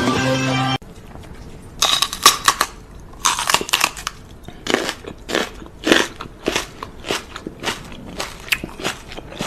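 Music cuts off just under a second in, followed by irregular crunching: sharp bites and crackles coming in uneven clusters, like something hard being chewed.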